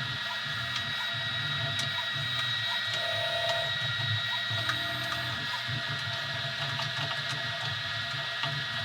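Easythreed X2 desktop 3D printer running a print: its stepper motors hum in short tones that keep changing pitch as the head moves. A steady high whine and faint ticks sound along with them.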